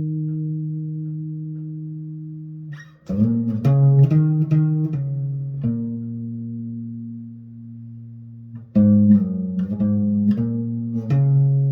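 Instrumental guitar music. A chord is left ringing and fades away, then a run of picked notes starts about three seconds in. A second chord is held, and picked notes come back about nine seconds in.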